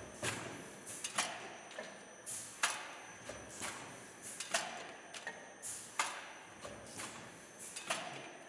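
Automatic blister packing machine running through its cycle: a regular mechanical clacking about once a second, with lighter ticks between and now and then a short hiss.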